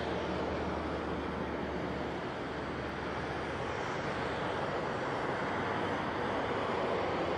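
Airbus A320-214's CFM56 turbofan engines running steadily at low taxi power as the airliner rolls slowly along the runway. The noise is even, with a low hum in the first couple of seconds.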